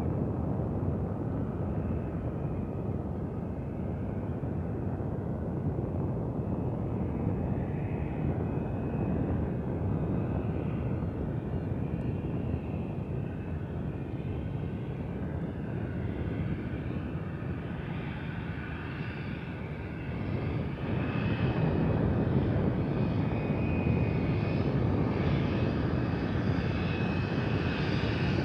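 Engine and propeller of a de Havilland Canada DHC-3 Otter floatplane running steadily as it comes in low and lands on the water. It grows louder about twenty seconds in, with a steady high tone over the drone from then on.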